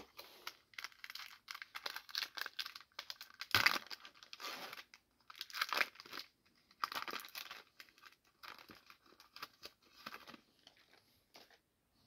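Foil wrapper of a Donruss football trading-card pack being torn open and crinkled by hand, in a series of irregular crackling rustles, the loudest about four seconds in.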